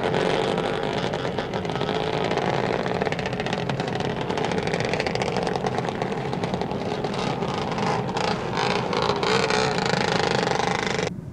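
Traffic sound effect: motor vehicle engines running and driving past, with an even noise that cuts off abruptly at the very end.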